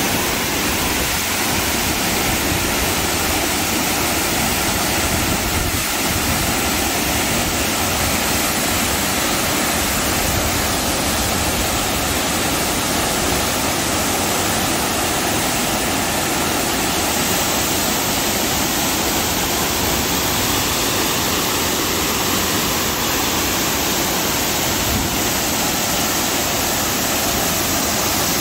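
Waterfall and the cascade below it pouring over rock: a steady, unbroken rush of falling water.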